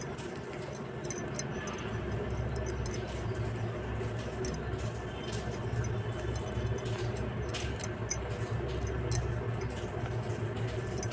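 Knitting needles clicking and tapping against each other as stitches are worked, a scatter of small sharp ticks at an uneven pace. A steady low hum runs underneath and gets louder about two seconds in.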